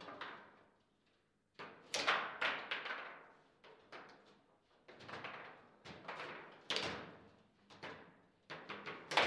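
Table football in play: the ball struck by the plastic figures and the rods knocking against the table in quick hard clacks. The clacks come in bursts, with a short lull about a second in and the loudest knock near the end.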